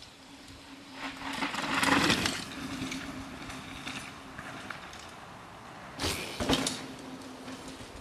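Mountain bike ridden fast down a dirt trail: a rush of tyres on loose dirt swells to a peak about two seconds in, and a second, shorter burst of tyre noise with a few sharp knocks of the bike's parts comes about six seconds in.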